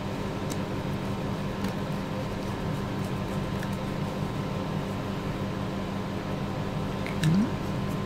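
Steady background hum with a few faint light clicks of a small hand screwdriver and screws being worked; a brief hummed voice sound near the end.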